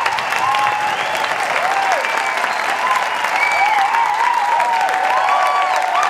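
Large crowd applauding steadily, with many short cheering calls rising and falling in pitch over the clapping.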